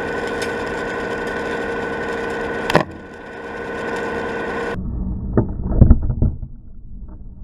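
Niskin sampling bottle on a CTD rosette sealing underwater: a sharp snap about three seconds in as the spring-loaded end cap shuts, over a steady hum with a high whine. About two seconds later the sound cuts abruptly to a duller, muffled sound with a few heavy thumps, the loudest about six seconds in.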